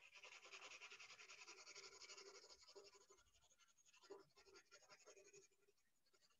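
Faint scratching of a pencil on sketchpad paper, hatching in a shadow with quick back-and-forth strokes, about eight or nine a second, for roughly three seconds. After a short pause, a few more strokes follow.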